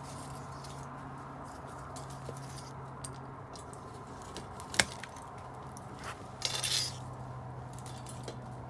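Wood fire crackling with scattered small pops, one sharp snap about halfway through and a brief noisy rush a couple of seconds later.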